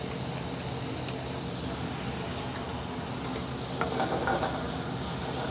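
Onion, ginger and garlic sizzling in hot vegetable oil in a pan over medium-high heat: a steady frying hiss with a few faint pops. It gets briefly louder about four seconds in.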